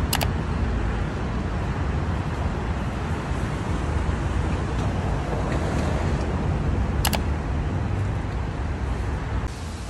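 Steady road traffic noise, a low rumble with a hiss above it, broken by two sharp clicks, one right at the start and one about seven seconds in; the rumble drops a little near the end.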